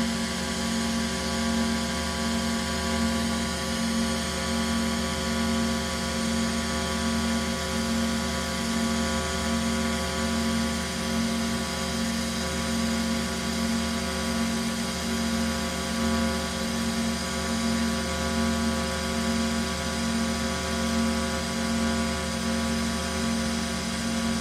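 TIG welding arc running from a Vulcan OmniPro 220 welder: a steady electrical hum and buzz with a faint regular pulse about once a second, as a bead is laid.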